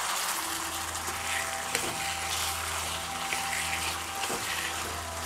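Boiled taro stems sizzling in hot oil in a pan as they are stirred, with a metal spatula knocking against the pan about twice.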